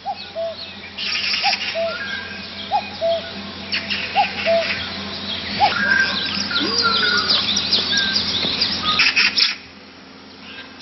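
Birds singing at dawn. A low two-note call repeats about every second and a half over many quick, high chirps and twitters, with a brief louder flurry of chirping near the end.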